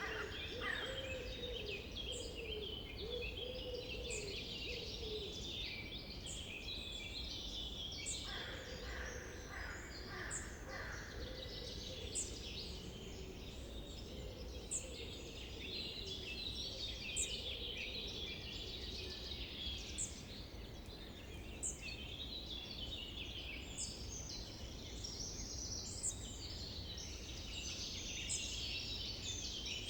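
Summer forest birdsong: many birds singing at once, with a thin high note repeated about once a second throughout. A lower warbling call joins at the start and again about eight to twelve seconds in, over a steady low background rumble.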